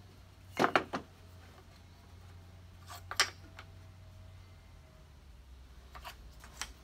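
Wood blocks knocked and set down on a plywood table-saw jig: a few sharp wooden knocks a few seconds apart, with no saw running.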